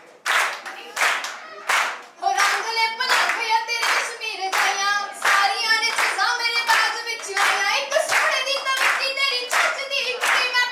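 A woman singing into a microphone while the audience claps along in a steady rhythm, about two to three claps a second.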